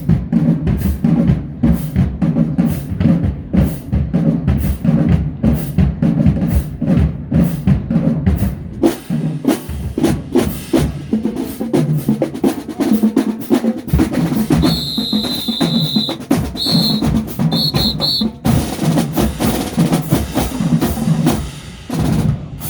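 Marching band drumline playing a fast, driving cadence on snare drums and bass drums. About two-thirds of the way in, a high steady tone sounds for over a second, then three short high blasts. The drumming stops abruptly near the end.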